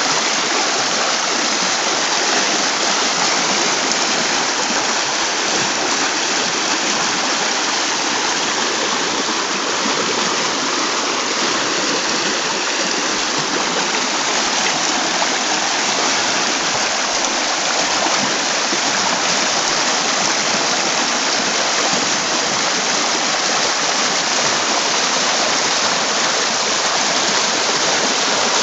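Shallow river rushing over a stony riffle, a steady hiss of white water.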